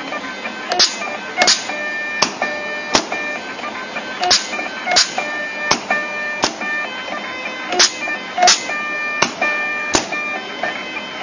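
Automatic flat-cable cut-and-strip machine cycling: a pitched motor whine from the feed drive comes and goes in short spells as the cable is fed. Sharp clicks from the cutting and stripping blades come roughly every 0.7 s.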